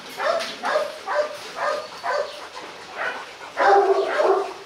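A dog barking over and over, about two short barks a second, with a longer drawn-out bark about three and a half seconds in.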